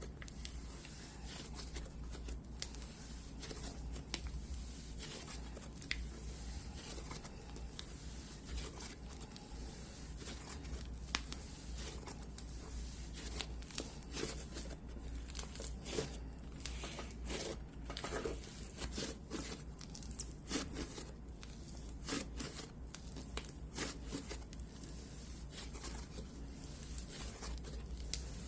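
Pumice slime being squished and worked by hand, giving an irregular run of small gritty crackles and clicks.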